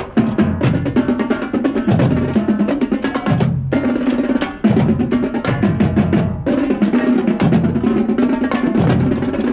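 Marching drumline playing a fast cadence: rapid rolls and strokes on tenor drums and snares, with pitched bass drums pounding out low notes underneath.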